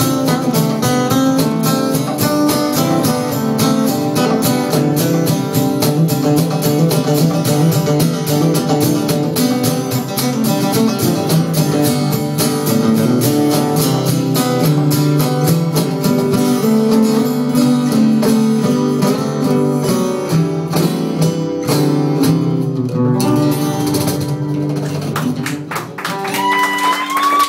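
Acoustic guitar strummed in a steady rhythm through an instrumental passage of a live song, thinning out near the end. A short rising whoop comes at the very end.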